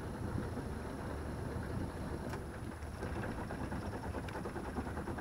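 Sailboat's inboard auxiliary engine running steadily at low speed, an even low chugging.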